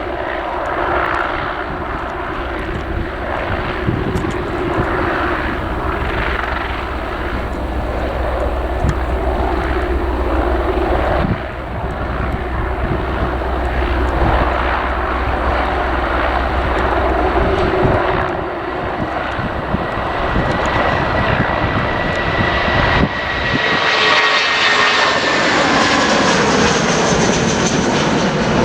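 Jet airliner engines running, a loud steady noise with a deep low hum for most of the stretch. About 23 seconds in the low end drops away and a high engine whine comes in, its pitches falling slightly as the aircraft passes.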